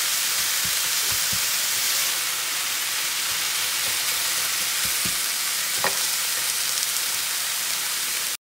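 Shaved beef and onions sizzling on a hot electric griddle, a steady hiss, with a few dull knocks of plastic and wooden spatulas chopping and scraping on the griddle surface in the first second or so and again about halfway through. The sound cuts off suddenly at the very end.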